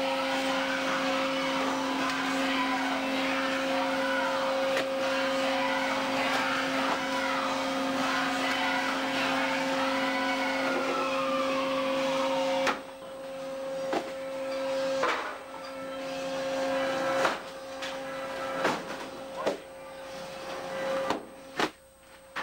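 Steady machinery drone with a constant hum aboard a fishing vessel. About halfway through the drone drops away and a string of separate sharp knocks follows.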